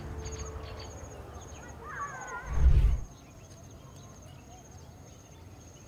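Edited film soundtrack: sustained music tones fade out, and a short wavering call is heard about two seconds in. A deep low boom follows just before the middle. After that there is only faint outdoor background with a steady high, fast ticking trill.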